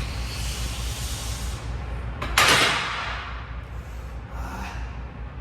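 A man blowing out one sharp, forceful breath about two seconds in, over a steady low hum. It is the hard exhale of a lifter after a heavy bench press set.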